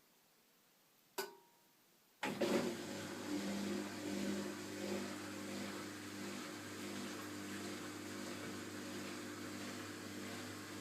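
A click with a short beep about a second in from a Zanussi washing machine. About a second later a motor in the machine starts up and runs with a steady low hum.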